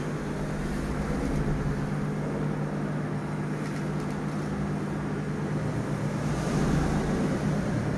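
Steady low hum and background room noise, with no voices, while the worshippers are silent in prostration.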